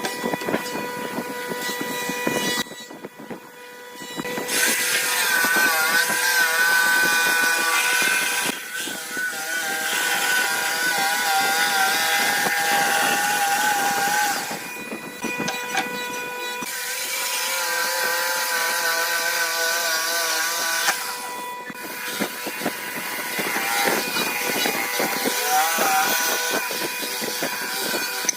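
Electric power tool working wood in several long passes, its motor whine wavering under load, with short breaks between passes.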